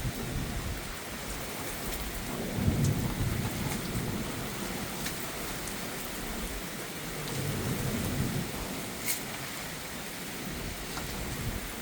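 Steady heavy rain, with drops ticking sharply near the microphone. Twice, a few seconds apart, a low swell rises and fades under the rain.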